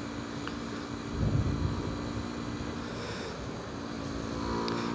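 SWM Varez 125's liquid-cooled 125 cc engine running steadily with the motorcycle under way, over a low rumble. Its note climbs higher near the end as the revs pick up.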